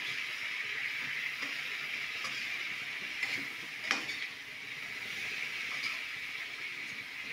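Tofu cubes sizzling steadily in a wok while a metal spatula stirs them, scraping and clicking against the pan, with one sharper clack about four seconds in.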